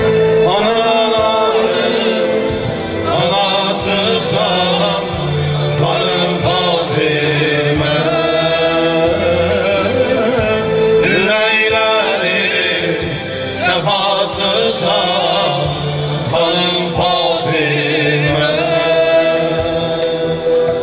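Men singing an ilahi devotional song into microphones in long, wavering melismatic phrases, over a synthesizer accompaniment holding a steady drone.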